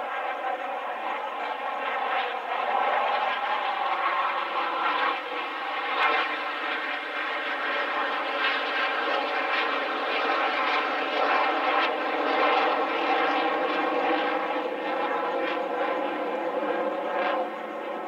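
An engine droning steadily, growing louder over the first couple of seconds, with a single click about six seconds in.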